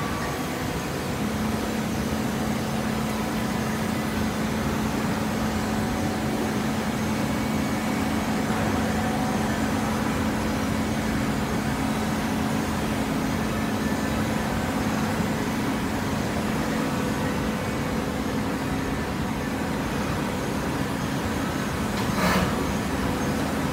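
Horizontal hydraulic baler running with steady machine noise; a steady hum sets in about a second in. A single brief knock near the end.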